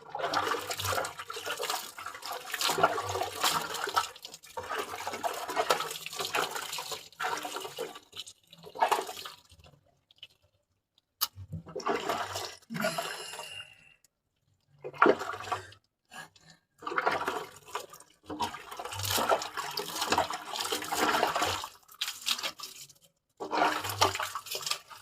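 Water being poured and splashed in repeated gushes, each lasting one to a few seconds, with short pauses between them.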